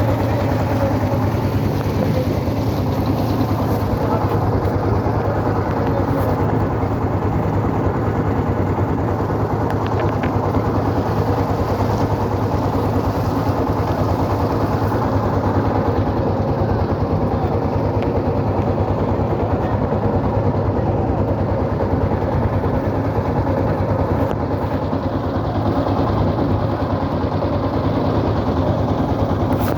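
Boat engine running steadily at a constant speed, with a low, even hum.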